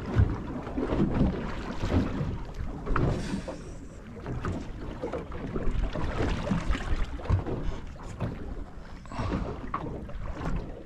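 Water slapping against the hull of a small trailer boat rocking on the sea, with irregular knocks and rustles close by.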